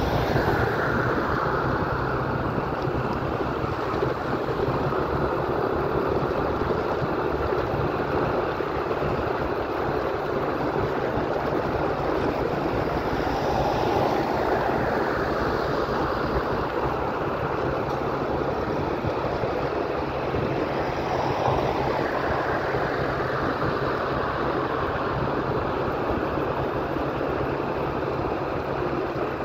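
Steady wind rush on the microphone of a vehicle moving at road speed, mixed with its engine and tyre noise on the road.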